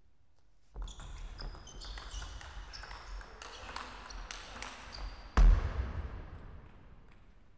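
Table tennis rally: the ball clicks off the bats and the table amid the players' quick footwork on the court floor. It ends about five and a half seconds in with one loud thump, the loudest sound, which then dies away.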